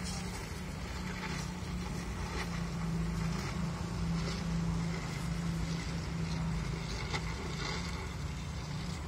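Stick (MMA) arc welding on thin car-body sheet metal: the arc crackles and sizzles steadily, with a few sharper pops, over a constant low hum.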